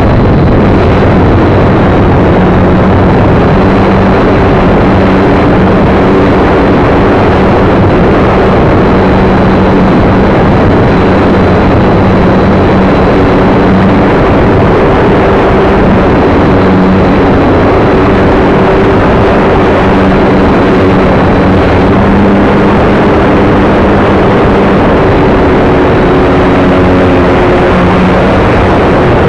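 Electric motor and propeller of an AcroMaster RC plane, heard from a camera mounted on it, under loud wind rush on the microphone. The propeller hum wavers and shifts slightly in pitch as the throttle changes.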